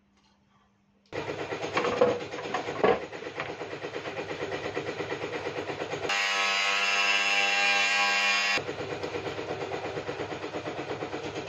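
Background music with a fast, steady pulse. It starts abruptly about a second in, and a brighter, more tuneful passage runs for a couple of seconds in the middle.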